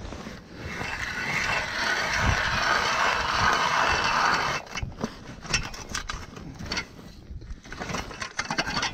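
Hand ice auger's blades grinding into thin, clear ice: a steady scraping for about four and a half seconds, then irregular crunches and clicks of ice chips as the bit keeps turning.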